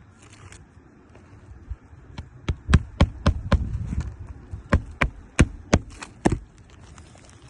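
Hammer driving new roofing nails through a replacement asphalt shingle: about a dozen sharp strikes in quick, uneven succession, starting about two seconds in and stopping near the end.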